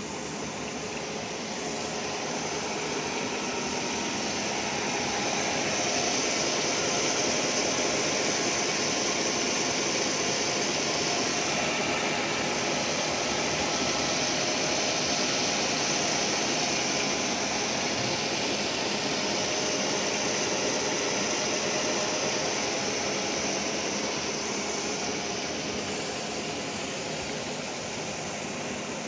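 Roll grinder grinding the fluted surface of a steel corrugating roll under coolant: a steady hissing grind that swells over the first few seconds and eases slightly near the end.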